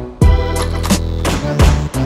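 Instrumental hip hop beat with no rapping: a deep sustained bass line under regular hard drum hits.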